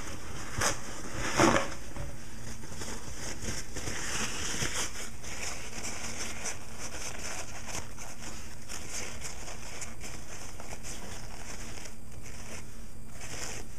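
Damp padding being crumpled and stuffed into a small container: a couple of sharp rustles in the first two seconds, then soft, faint crinkling over a steady low hiss.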